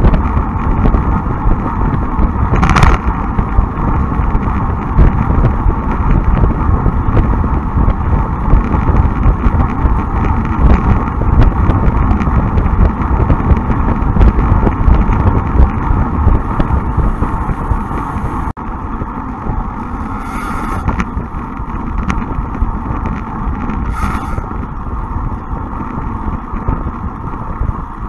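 Wind rushing over the microphone of a bike-mounted camera on a moving road bike, a steady low rumble mixed with tyre and road noise. The noise drops in level about two-thirds of the way through, and there are a few brief hisses.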